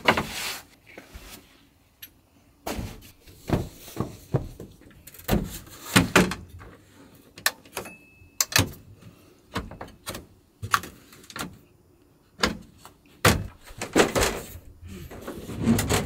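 Irregular knocks, clacks and thuds of a folding aluminium camp table being unfolded and set up, with gear shifted about, and a brief squeak about eight seconds in.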